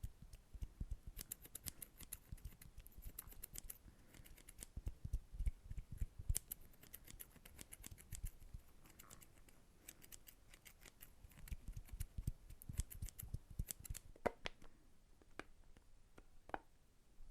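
Close-miked ASMR hand sounds: a fast, dense run of crisp clicks and crackles, thinning to a few separate, more ringing taps near the end.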